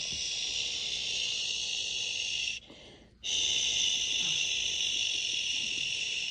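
Electronic sound effect from a Peppa Pig cruise ship toy's small speaker: a steady high hiss that cuts off about two and a half seconds in and starts again half a second later.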